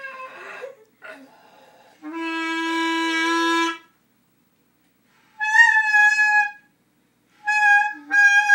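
A clarinet plays held notes: a long low note, then three shorter, higher notes. A dog's wavering howl tails off in the first second.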